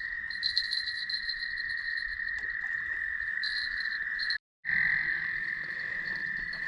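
Night chorus of calling frogs and insects: a steady, continuous high trill that cuts out briefly about four and a half seconds in.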